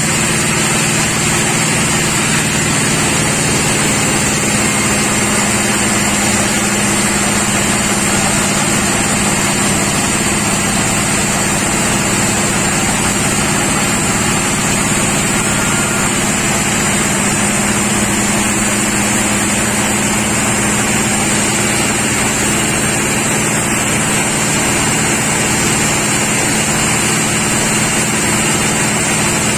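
Sawmill machinery running steadily: a constant engine-like hum with a high whine above it, unchanging throughout.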